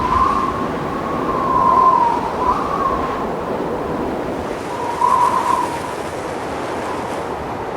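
Blowing wind sound effect: a steady rushing with a high, whistling howl that wavers up and down, swelling about two seconds in and again about five seconds in.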